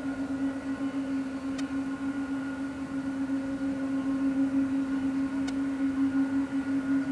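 Boeing 777-200 airliner taxiing close by, its twin turbofan engines at low taxi power giving a steady low hum with fainter higher whines, growing slightly louder about halfway through as it passes.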